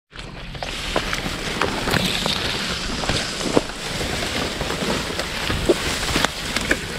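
Dry and green grass rustling and crackling as it is pushed through and parted by hand, with many small sharp snaps of dry stems.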